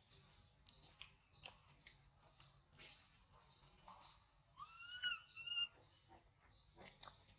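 Faint bird chirps repeating in the background, with one louder, short two-note call about five seconds in.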